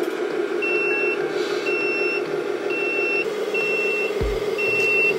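RC tow truck's reversing beeper sounding while the truck backs up: five short, high, single-pitch beeps about once a second, over the model's steady running hum.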